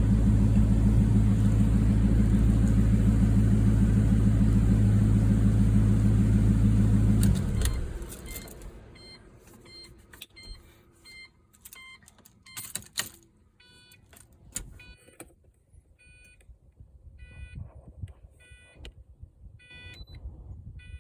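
2004 Pontiac GTO's 5.7-litre LS1 V8 idling steadily, running evenly now that a burned spark plug wire has been replaced, then shut off about seven seconds in. Clicks and a string of short electronic beeps follow.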